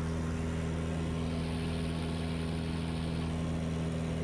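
DR107 One Design aerobatic plane's piston engine and propeller droning steadily in flight, heard from inside the cockpit: an even, unchanging low hum mixed with airflow noise.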